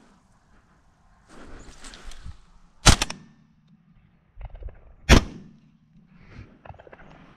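Two shots from a Browning A5 semi-automatic shotgun, a little over two seconds apart, fired at a crow in flight. Leaves and brush rustle just before the first shot.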